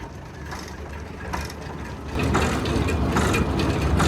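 Old tractor engine running steadily, with the mechanical clatter of a working manure spreader. About two seconds in it grows louder and the clatter becomes thicker.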